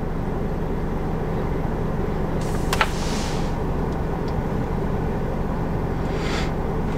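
Steady hum of a car idling, heard inside the cabin, with a soft click and a brief hiss about three seconds in.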